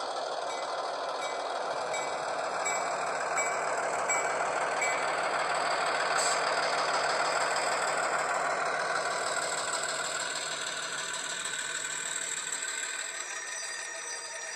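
ESU LokSound sound decoder in an HO scale Athearn Genesis GP15-1 model locomotive playing diesel engine sound through its small speaker as the model runs past, growing louder and then fading as it moves away near the end. A short ding repeats about three times every two seconds for the first five seconds.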